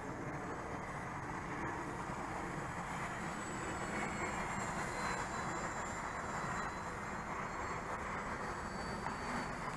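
Small electric RC airplane's motor and propeller in flight overhead: a distant high whine that drifts slowly up and down in pitch over a steady low rumble.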